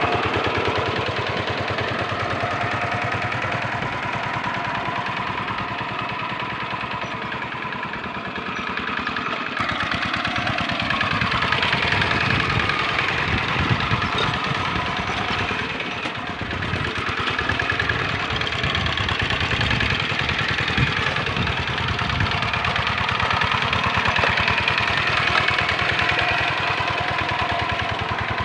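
Diesel engine of a two-wheel hand tractor running steadily under load as it ploughs through flooded paddy mud, with a rapid, even firing beat.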